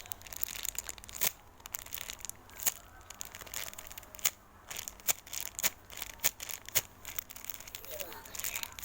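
Irregular crinkling and crackling of a squishy toy's packaging being handled, many quick sharp crackles with short pauses between them.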